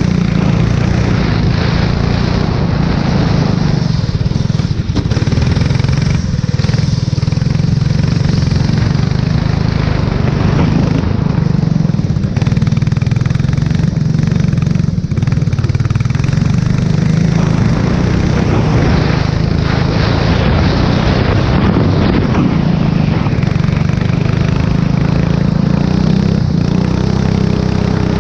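Formula 4 race car engine running hard and steadily, with a constant hiss of wind and spray over it.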